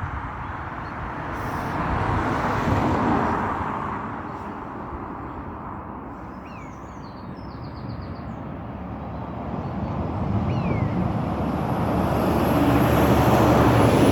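Vehicles passing on a nearby road: a rushing swell about two seconds in that fades, then a second, louder pass building toward the end. A couple of faint, short, falling chirps come in the middle.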